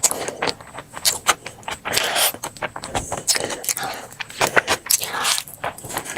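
Close-miked eating: a rapid run of sharp clicks and crackles from crunchy food being bitten and chewed.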